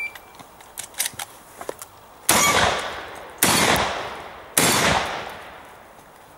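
Three shotgun shots about a second apart, each ringing out and fading over about a second, during a practical shotgun stage. They are preceded by a few light clicks.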